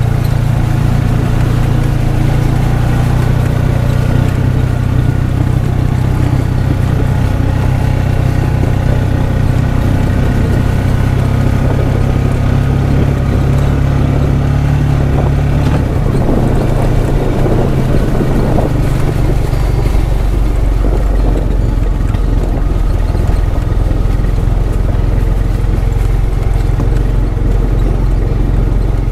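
A vehicle engine running steadily while driving, a low drone with road noise; about halfway through, the engine note drops lower.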